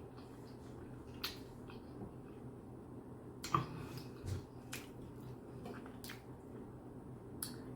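Toothless mouth chewing food with the gums: irregular wet lip smacks and mouth clicks, the loudest about three and a half seconds in, over a steady low hum.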